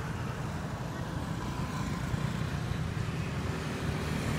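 Road traffic going by on a paved road: cars and motorbikes passing, heard as a steady low noise.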